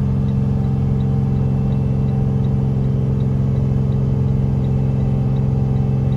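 Cab interior of a 2019 Jayco Seneca Super C motorhome on a Freightliner chassis: the diesel engine drones steadily along with road noise while cruising. Faint ticking about three times a second comes from the hazard flashers.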